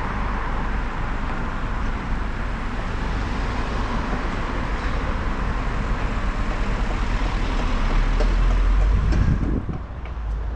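Car and street traffic noise picked up by a camera on a car's bonnet: a steady low rumble with wind on the microphone. The rumble swells about eight seconds in as the car pulls away from the junction, then dips sharply near the end.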